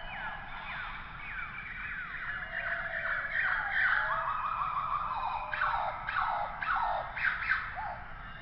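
Cheetah chirping: many short, high, falling calls, overlapping one another, growing louder about halfway through, with a run of sharper chirps near the end.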